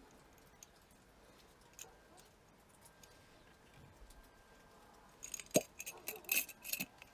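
Glass clinking and knocking as glass jars are handled: a few faint taps, then a quick run of sharp clinks about five seconds in.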